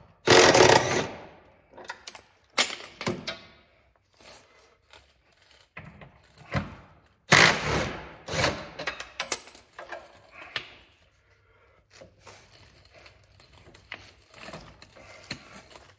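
Cordless impact wrench hammering on bolts under a car in several short bursts. The loudest bursts come near the start and about seven seconds in, with quieter ones after that.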